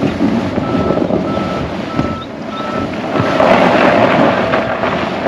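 Tesla Model Y's all-season tyres churning on packed snow under loud wind rush on the microphone, as the car tries to pull away from a standstill on a steep hill and fails to get traction. A short high beep repeats about every half second through the first three seconds.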